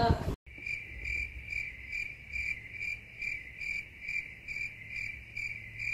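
Crickets chirping, used as a comic 'crickets' sound effect. A high chirp repeats evenly about twice a second, starting abruptly after a brief silence.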